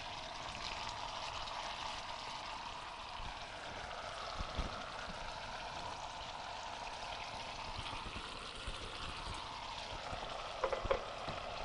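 Chicken and sauce sizzling steadily in a frying pan, with a light knock of the tongs about four and a half seconds in and another brief clatter near the end.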